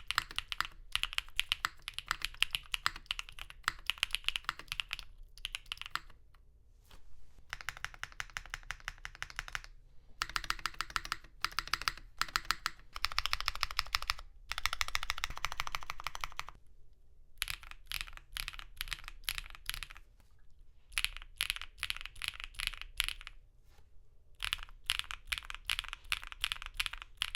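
Typing on a custom 60% mechanical keyboard (KBDFans Tofu60 2.0, polycarbonate plate with plate and case foam, GMK keycaps) fitted with stock, factory-lubed Osume Sakura linear switches. Fast runs of keystrokes come in bursts of a few seconds, each broken by a brief pause.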